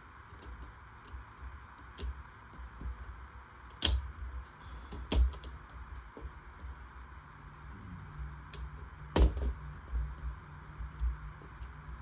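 LEGO Technic plastic pieces being handled and pressed together: scattered light clicks and ticks, with three louder snaps about four, five and nine seconds in.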